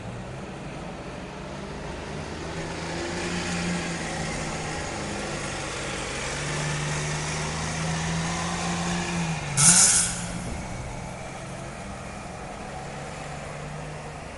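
Steady low hum of a motor vehicle's engine running, under a rushing noise that swells for several seconds. About ten seconds in, a short, loud hiss cuts in as the engine note dips.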